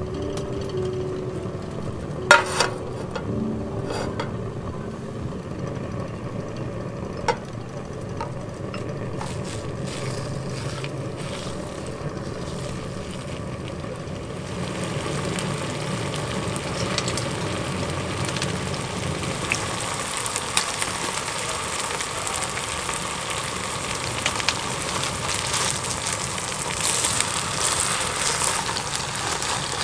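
A few sharp clicks over a low steady hum, then from about halfway a flat iron steak sizzling in butter in a frying pan on a wood-stove top, the sizzle growing louder with small crackles near the end.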